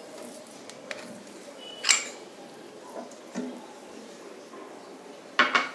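A few clinks and scrapes of a slotted metal ladle against a bowl and kadai as thick ground rice batter is scraped into the pan, with a ringing clink about two seconds in and a louder scrape near the end.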